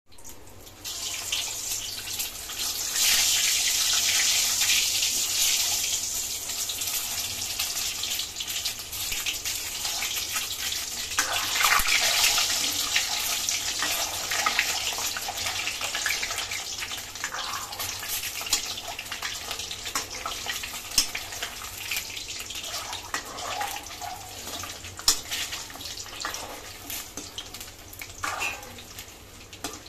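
Peeled hard-boiled eggs sizzling in hot oil in a metal kadai, with a metal ladle scraping and clicking against the pan now and then as the eggs are turned. The sizzle is loudest a few seconds in and eases off toward the end.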